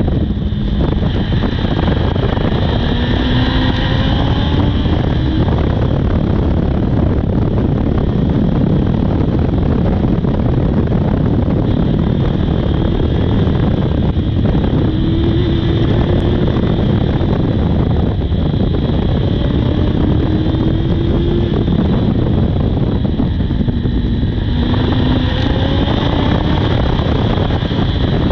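Honda CB400 inline-four motorcycle engine under way, accelerating in several runs that rise in pitch and drop back at each gear change, with heavy wind noise on the microphone.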